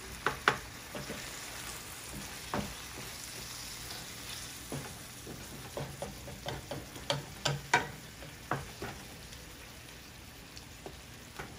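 Crumbled tofu with onion and tomato sizzling in a nonstick frying pan, stirred with a wooden spatula that scrapes and taps against the pan now and then.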